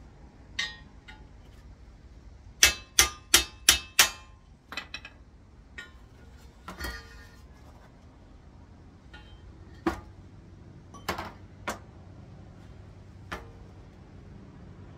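Metal tools and gearbox parts knocking together: a quick run of five sharp metallic knocks, then scattered lighter clinks and taps.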